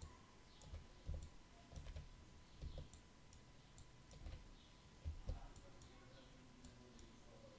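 Near silence broken by a few faint computer mouse clicks and soft knocks at irregular intervals, as nodes are dragged and the view is panned.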